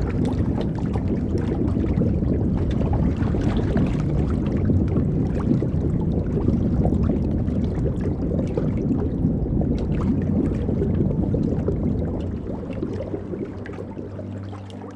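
Running water gurgling and splashing in a steady rush, heaviest in the low range, easing off somewhat near the end.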